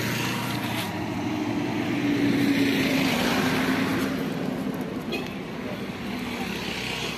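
Street traffic: a motor vehicle's engine hum swelling as it passes close, loudest about two and a half seconds in, then fading. A couple of light clicks about five seconds in.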